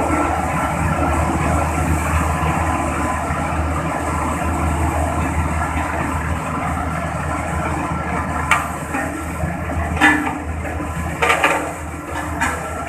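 Road compactor's engine running steadily with a deep hum, with a few sharp clanks in the last few seconds.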